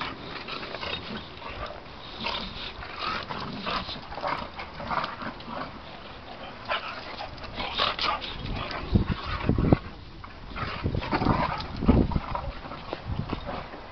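Two Boxer dogs play-fighting: a run of short, irregular dog noises, with a few loud low thumps in the second half.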